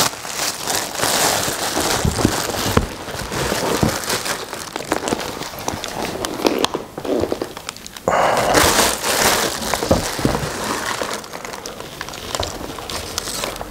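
Tight cellophane wrap crinkling and crackling in irregular bursts as a pair of boxing gloves is handled and unwrapped, with a louder stretch of crinkling about eight seconds in.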